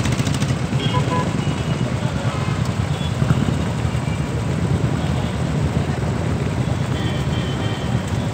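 A large group of Royal Enfield Bullet single-cylinder motorcycles idling together, a steady low engine sound from many bikes at once.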